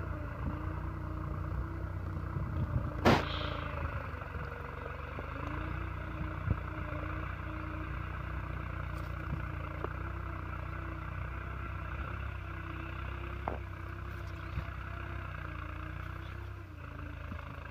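Tractor engine running steadily under load as it pulls a plough between cotton rows, with one sharp click about three seconds in and a little fainter near the end.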